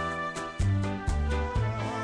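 Instrumental karaoke backing track playing between sung lines: sustained chords over a bass line that changes note about twice a second, with a wavering melody line entering about halfway through.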